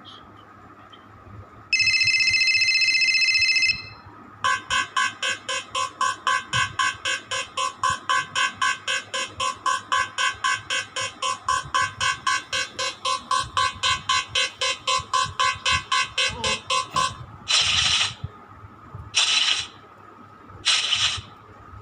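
Electronic buzzer-like alarm tones: a steady beep for about two seconds, then rapid pulsing beeps about three or four a second for some twelve seconds, then several short hissing bursts near the end.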